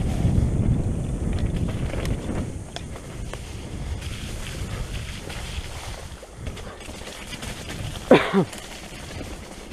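Wind buffeting the microphone over the rumble and rattle of a mountain bike rolling along a rocky dirt trail, loudest in the first few seconds, with a few clicks. About eight seconds in comes one short, sharp squeal that falls quickly in pitch.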